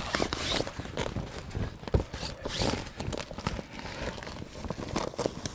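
Canvas annexe wall being handled and its Velcro tabs pressed and pulled: irregular rustling and scraping with short, sharp rips and knocks.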